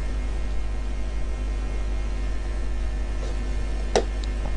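Steady low electrical hum under a faint hiss, with a single short click about four seconds in.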